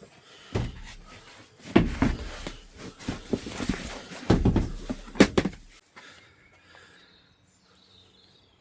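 A run of irregular heavy thumps and knocks over the first six seconds, then it goes quieter.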